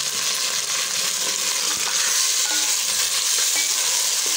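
Raw mutton pieces sizzling steadily in hot oil with softened onions, searing just after going into the pot, with a spoon stirring through them.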